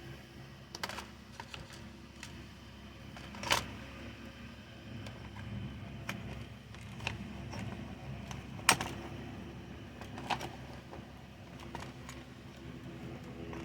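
Scattered clicks and light knocks of chainsaw parts and tools being handled, with two louder knocks about three and a half and nine seconds in, over a low steady hum.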